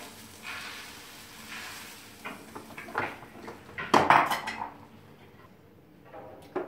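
Egg batter sizzling on the hot plate of an electric sandwich toaster, then clatter as the toaster's hinged lid is lowered shut about four seconds in, with a few lighter knocks of the glass mixing bowl and the lid.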